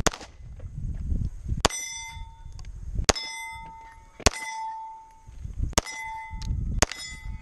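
Six pistol shots about a second apart at a steel match, the last five each followed by the ringing of a struck steel plate.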